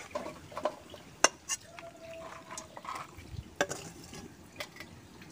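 Metal spatula scraping along a wok and tipping dry-fried mushroom into a stainless steel bowl: soft scrapes and rustles with a few sharp metal clinks.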